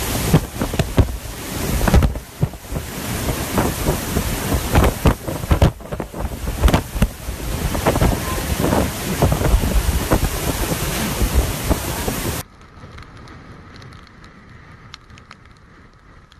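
Typhoon wind buffeting the microphone with rain, loud and surging in uneven gusts. About twelve seconds in it cuts off suddenly to a much quieter rush of wind and water.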